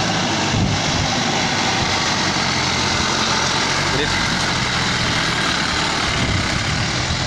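Engine of a log-laden jeep-type pickup running steadily at low revs as it drives slowly past.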